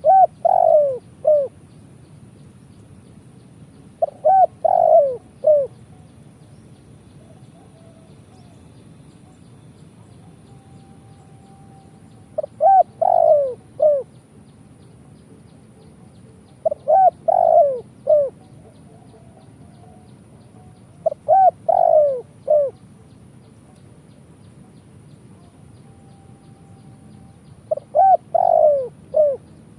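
Spotted dove (tekukur) cooing: six phrases of three or four low, hooting notes each, separated by pauses of a few seconds.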